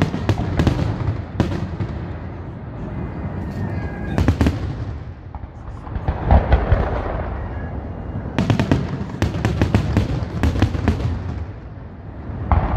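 Fireworks display: aerial shells bursting in quick clusters of sharp bangs and crackles, with a deeper boom about six seconds in and a rumble between the volleys.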